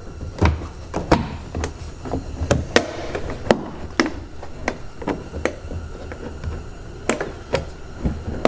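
Plastic interior trim panel on a Ford Focus hatchback's rear pillar being pried and worked loose by hand with a plastic clip removal tool: an irregular string of sharp clicks and knocks of plastic against plastic.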